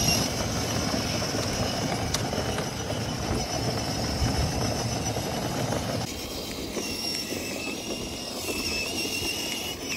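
Battery-powered ride-on toy car driving on an asphalt street: a steady high whine from its electric motor and gearbox over the rumble of its wheels rolling on the road.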